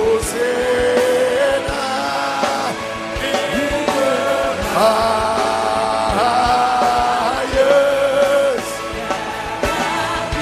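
Live worship song: voices sing long held notes that step from one pitch to the next, over a full band with percussion.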